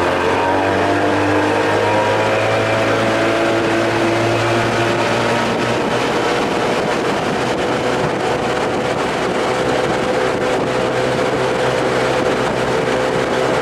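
Evinrude outboard motor running a small aluminium boat at speed. Its pitch climbs over the first couple of seconds as the throttle comes up, then holds steady, over the rush of water and wind.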